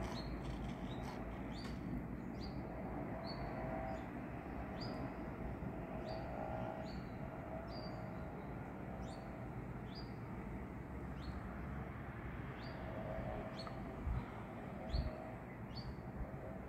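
A small bird calling over and over, short high chirps about once or twice a second, over a steady low background rumble. Two dull low bumps come near the end.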